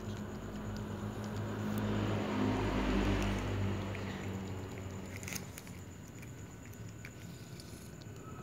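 Cat chewing and biting into a soft meatball, with wet smacking and small clicks. A steady low hum runs under the first half, and a louder swell of noise peaks about three seconds in.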